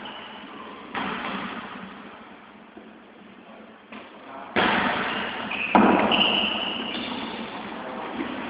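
Volleyball being struck during play: sharp thumps about a second in, then two louder ones about four and a half and six seconds in, each echoing in the large hall.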